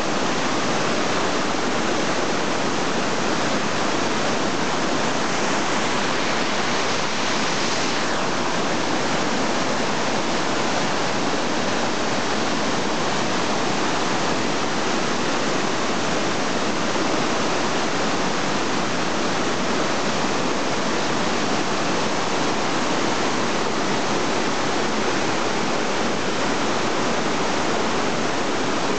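Large waterfall cascading into a pool: a steady, unbroken rush of falling water.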